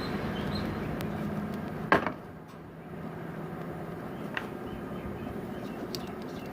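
A steady hum that fades out over the first two seconds, then a sharp click about two seconds in and a lighter click a couple of seconds later, from small sewing machine parts being handled while the shuttle assembly is refitted.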